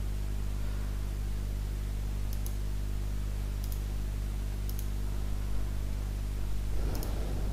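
Steady low electrical hum with three faint computer mouse clicks spread through the middle.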